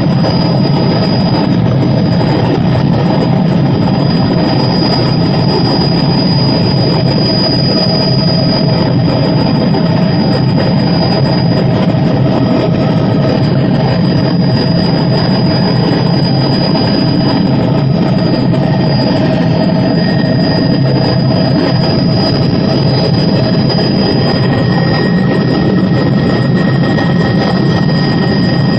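Tour helicopter in flight: its turbine engine and rotor make a loud, steady drone with a thin high whine above it.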